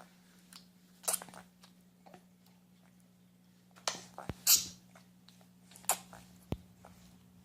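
A dog making pig-like snorts through its nose, about four short bursts with the loudest just past the middle, plus a couple of sharp clicks.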